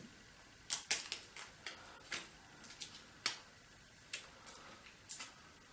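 Irregular light clicks and taps of plastic and small metal parts as a replacement screen is fitted into the lid of a Dell Inspiron 17 3721 laptop.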